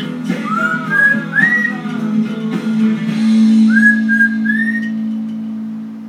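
Lilac-crowned Amazon parrot whistling short notes that rise and fall, along with an acoustic guitar song playing in the room. A first run of whistles comes in the first two seconds, the song ends on a held chord a little past halfway that slowly fades, and the parrot adds three more whistles over it.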